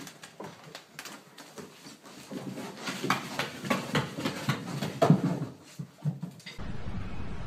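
A small puppy's paws and claws tapping and knocking on bare wooden stairs as it scrambles up them: an uneven run of quick taps and thuds. Near the end it cuts to a steady hiss.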